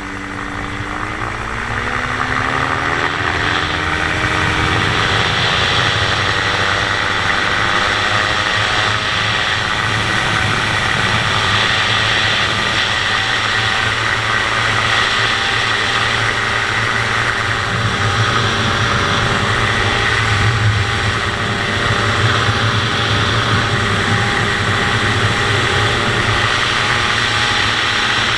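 Dominator gyroplane's pusher engine and propeller in flight. The revs rise over the first few seconds, growing louder and higher, then hold steady.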